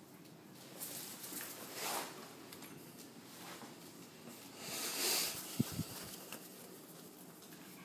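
Small animals scuffling and scurrying on a floor while playing: two short bursts of rustling and scrabbling, the second the louder, followed by a couple of soft thumps.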